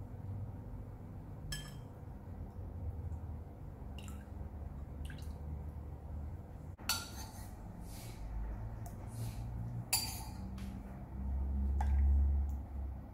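Metal spoon clinking against porcelain soup bowls, with small drips of soup, as the oil is spooned off the surface of the soup. There are several separate sharp clinks, and a dull low rumble near the end.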